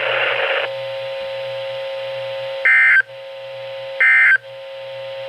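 NOAA Weather Radio audio: the radio hiss cuts off to a steady buzzing tone, then two short, loud, high screeching bursts about 1.3 seconds apart. These are the SAME digital end-of-message bursts that close the weekly test.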